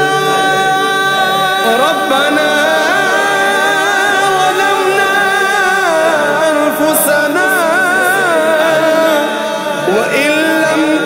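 A male voice sings long, wavering, drawn-out notes of an Urdu devotional hamd, over steady held tones underneath.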